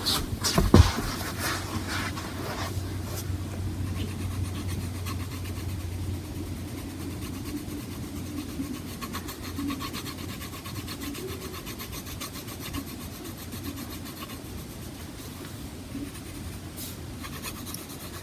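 Pencil scratching steadily on sketchbook paper as the hair is coloured in with continuous shading strokes. A single knock sounds about a second in.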